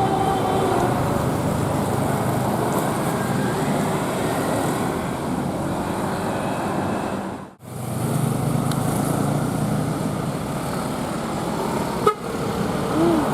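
Passing bus and road traffic, a steady rush of engine and tyre noise. A telolet horn's tune trails off in the first second, and the noise drops out abruptly for a moment about halfway before resuming.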